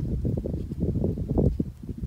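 Wind buffeting and handling noise on a handheld camera's microphone while scrambling up bare rock: an uneven low rumble with irregular knocks and bumps.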